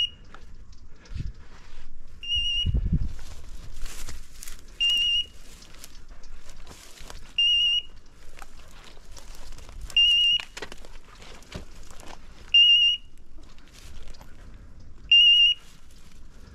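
Electronic beeper collar on a hunting dog giving a short high beep about every two and a half seconds, seven times, with rustling and crackling in between.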